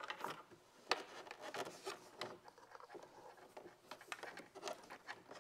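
Faint hand-handling noises: scattered light clicks and rubbing as small plastic parts and wiring are pressed and worked into place, with one sharper click about a second in.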